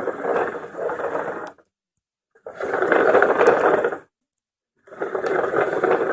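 Small whirring, rattling wheels of a toy car rolled along a surface in three runs, each about one and a half seconds, with short pauses between.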